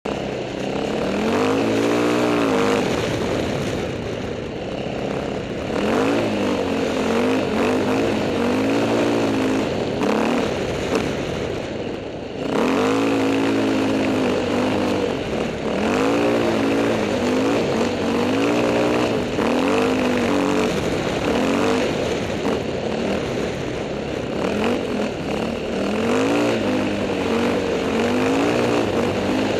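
KTM 530 dirt bike's single-cylinder four-stroke engine under way, revving up and falling back again and again as the throttle is worked through the gears. The throttle shuts off briefly about twelve seconds in, then opens up sharply again.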